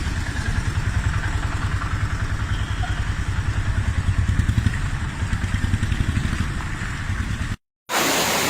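A motor vehicle's engine running with a steady, rapid low throb, over a noisy hiss. It cuts off abruptly near the end.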